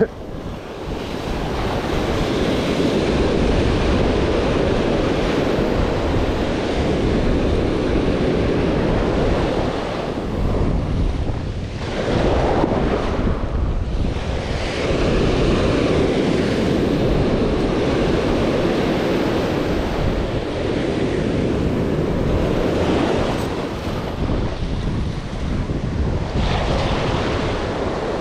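Ocean surf breaking and washing up the beach, with wind buffeting the microphone; the rush eases briefly a couple of times between waves.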